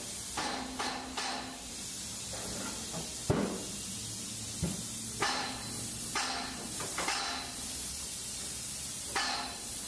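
Polyurea spray gun hissing in short repeated bursts over a steady high hiss, with a low machine hum underneath and a couple of sharp knocks.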